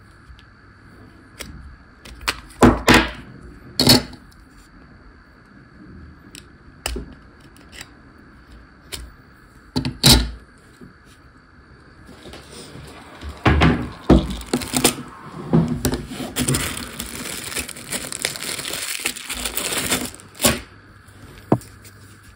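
A few scattered knocks and clicks, then about eight seconds of dense crackling and rustling that starts about twelve seconds in and stops with a last knock.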